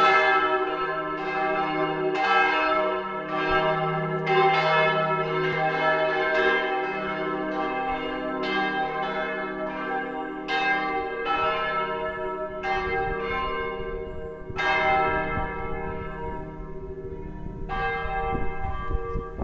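Church bell ringing: repeated strikes about once a second, each ringing on and overlapping the next, the strikes thinning out in the last few seconds.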